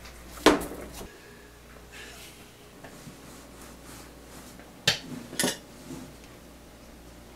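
Kitchenware being handled: a sharp clatter about half a second in and two more knocks around five seconds in, over a faint low hum.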